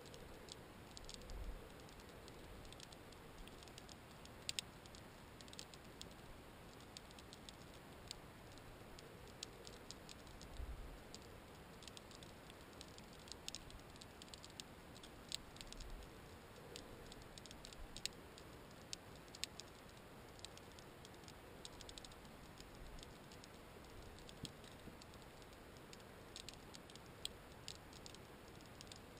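Faint underwater ambience: irregular sharp clicks and ticks, a few a second, over a soft hiss, with a couple of brief low thumps.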